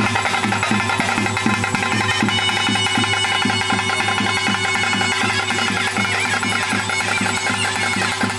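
Music with a steady low drone and a quick, regular beat.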